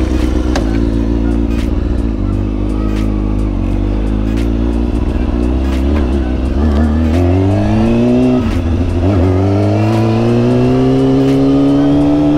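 Kawasaki ZX-6R's inline-four engine pulling away. It runs low and steady at first, then revs up, drops at a gear change about eight and a half seconds in, and climbs again through its short stunt gearing, changing gear again near the end.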